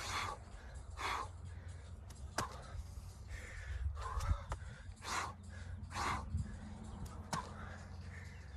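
A man breathing hard through burpees: short, forceful exhales about once a second, with a few sharp taps of hands landing on a rubber mat.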